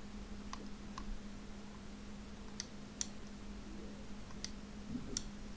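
About six separate, sharp clicks from computer input spread over a few seconds, over a faint steady low hum.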